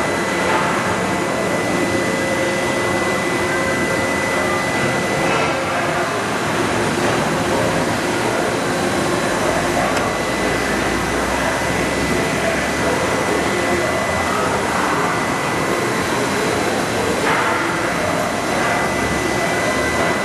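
Loud, steady machine-shop noise from running machinery, with a thin high whine held throughout.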